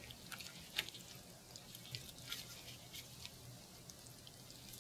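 Faint, scattered wet clicks and squelches of a pig heart's fatty pericardium being cut and pulled away from the heart.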